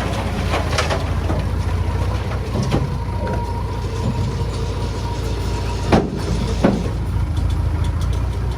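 Small crawler bulldozer's diesel engine running steadily at work, with two sharp metallic clanks about six seconds in, less than a second apart.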